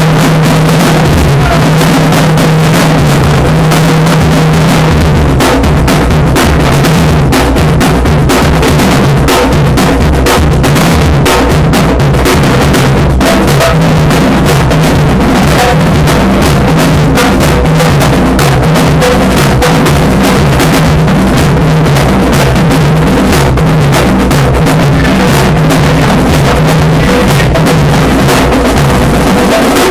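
Marching drumline playing a cadence: marching snare and bass drums struck in a loud, continuous, dense rhythm.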